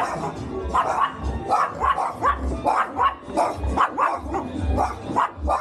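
A dog barking over and over, in short barks about two or three a second.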